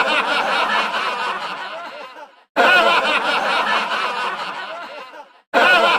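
Human laughter, a looped 'hahaha' sound effect: each burst starts loud and fades away over about two and a half seconds, breaks off briefly, then starts again, twice.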